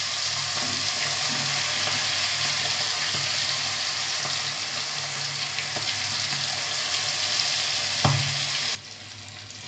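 Masala-coated quail pieces deep-frying in hot oil in a kadai: a steady, loud sizzle. One sharp knock comes about eight seconds in, and the sizzle drops off suddenly just after.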